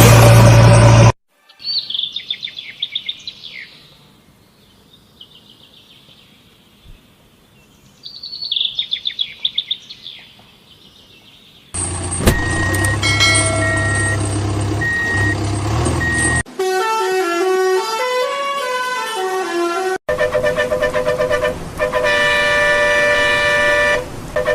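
A string of cartoon sound effects: two spells of rapid bird chirps, then vehicle horn honks over a low engine hum, a short electronic jingle, and more long horn blasts near the end.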